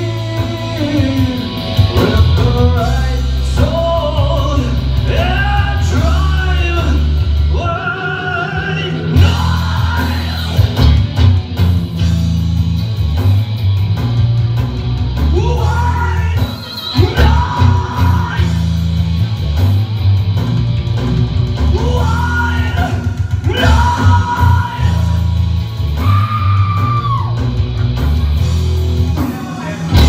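Live rock music played loud: a man singing while playing electric guitar, over a heavy low end and drums.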